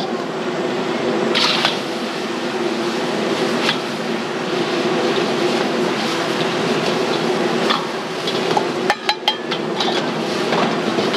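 High-flame gas wok burner running steadily as beef fried noodles are stir-fried, with a metal ladle clinking against the steel wok a few times, in a quick cluster about nine seconds in.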